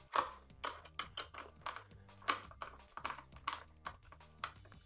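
Background music: a low bass line under a steady beat of sharp clicking percussion, about two to three clicks a second.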